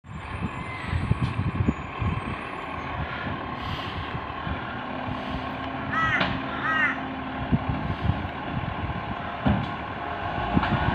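Automated side-loading garbage truck running at the kerb, its diesel engine rumbling steadily. A steady hum from about five to eight seconds in comes as its arm lifts and tips a wheelie bin. There are a few low thumps in the first couple of seconds and short bird chirps around six seconds in.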